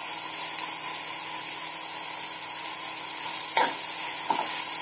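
Chopped vegetables sizzling steadily as they fry in a nonstick kadai, stirred with a perforated metal spatula. The spatula clacks sharply against the pan about three and a half seconds in and again a moment later.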